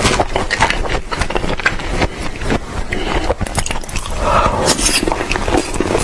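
Wet smacking, biting and chewing sounds of a man eating thick slices of raw salmon, a quick run of sharp wet clicks from lips and mouth.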